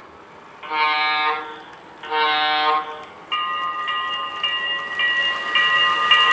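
Sound-equipped HO-scale Broadway Limited PRR GG1 model sounding its horn in two short blasts, then its bell ringing steadily and growing louder as the locomotive comes closer.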